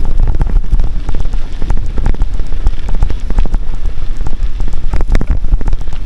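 Loud, continuous crackling and rattling with many small knocks over a low rumble: an arm-mounted camera jostling and rattling as the bicycle rides over a rough, shaky track.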